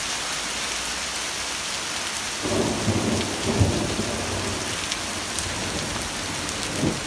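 Heavy rain falling steadily on pavement in a thunderstorm. A roll of thunder rumbles in about two and a half seconds in, peaks about a second later and fades out.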